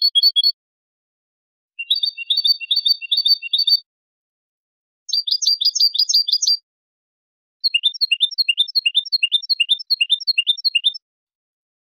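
European goldfinch (jilguero) singing the phrases that goldfinch fanciers class as 'cantos de fantasía' in the song code: four short phrases of rapid, repeated high chirping notes, each cut off by a silent gap. The last phrase is the longest, about three seconds.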